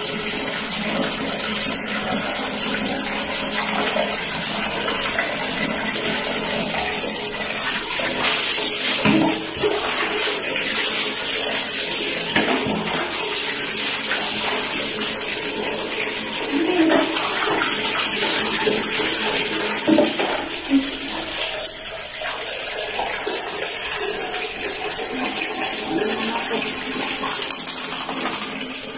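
Tap water pouring steadily into a plastic bucket, splashing as it fills.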